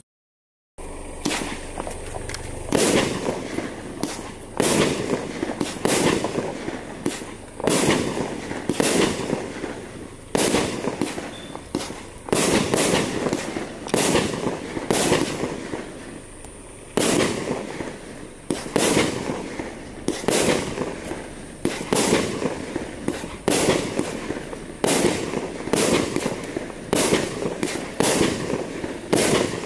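Pyro Mafia Escobar 25mm, 25-shot firework barrage cake firing shot after shot, starting about a second in and going roughly one shot a second. Each shot is a sharp bang with a short decaying tail.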